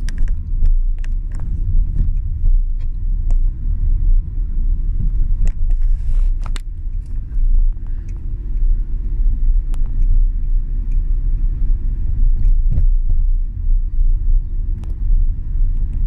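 Car cabin noise while driving on town streets: a steady low rumble of engine and tyres on the road, with scattered small clicks and knocks throughout.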